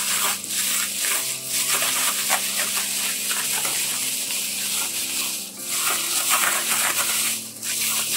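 Plastic bag crinkling and rustling as chicken pieces coated in potato starch and soy marinade are kneaded inside it by hand. Soft background music with sustained tones plays underneath.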